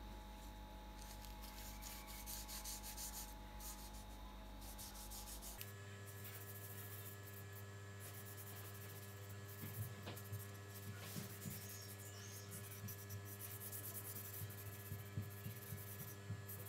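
Faint rubbing of a cloth rag wiping oil onto a wooden knife handle, with a few soft handling knocks in the second half, over a steady low electrical hum.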